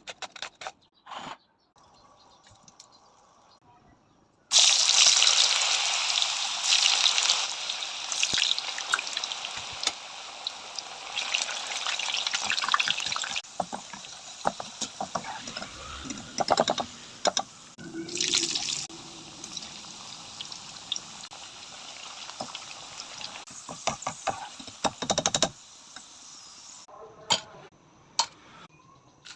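Potato slices sizzling and crackling in hot frying oil. The sizzle starts suddenly and loud about four seconds in, when the slices go into the oil, then settles with flare-ups and dies away near the end.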